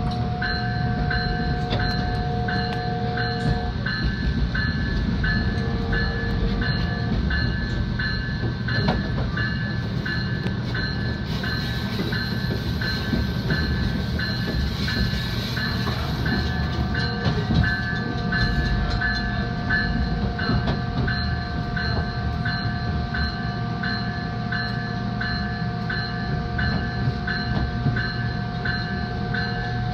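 Metra Electric commuter train running, a steady rumble with a steady whine that comes and goes and rises near the end. A warning bell dings about twice a second throughout.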